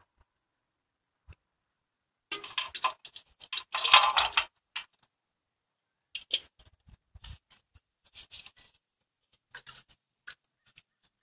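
Hand ratchet with a socket clicking as a bolt is turned on the transmission housing: a dense run of clicks about two seconds in, then scattered single clicks and light metal taps.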